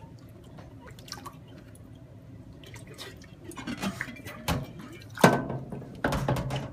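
Water dripping and splashing from a wet French press over a sink, with a few sudden knocks and clinks, the loudest a little over five seconds in, as the glass carafe is handled and pushed out of its plastic frame.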